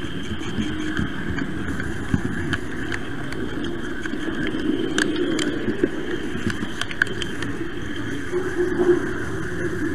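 Model train running along its track, heard from on board: a steady motor hum and wheel rumble with a few sharp clicks, as over rail joints and points.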